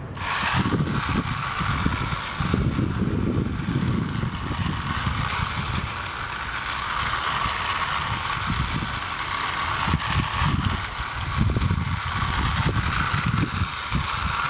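Battery-powered WOLF-Garten hand spreader switched on right at the start, its small electric motor spinning the spreader disc with a steady whir while it throws out lawn fertilizer granules.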